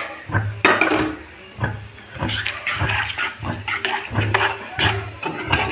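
Metal spoon stirring a thick, wet chili sauce with chopped potato in a wok-shaped iron pan: repeated strokes of the spoon scraping the pan and the sauce sloshing.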